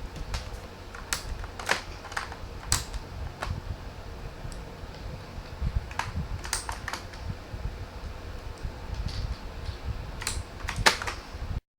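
Irregular clicks and clacks from a K28 mechanical keyboard being handled, over a low rumble. All sound cuts off abruptly near the end.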